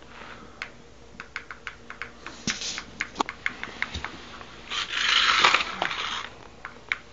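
Irregular sharp plastic clicks of a toy RC truck's handheld remote control being worked, with a louder rustling swish about five seconds in.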